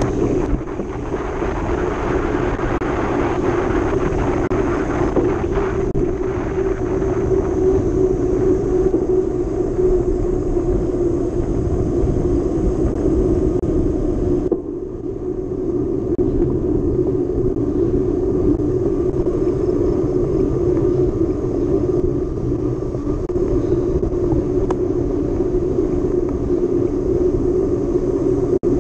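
Steady rumble and wind buffeting on the camera microphone of a mountain bike being ridden, with a short drop in level about halfway through.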